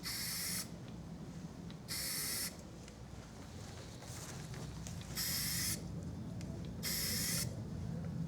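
Aerosol spray paint can spraying in short bursts of about half a second, one every second and a half to two seconds, as light coats go onto metal parts. A low steady hum runs underneath.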